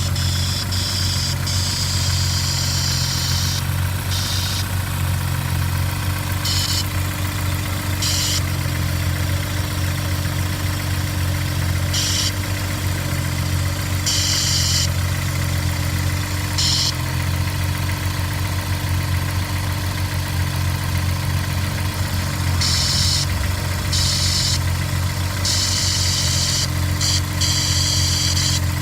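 Honda S2000's four-cylinder engine idling steadily, the subject of an abnormal-engine-noise complaint. A high, noisy sound comes and goes in short patches over the steady idle.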